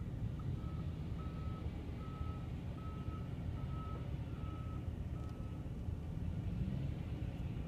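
Volvo wheel loader's reversing alarm beeping at a single pitch, about eight beeps roughly one every 0.7 s, stopping a couple of seconds before the end. A steady low engine rumble runs underneath.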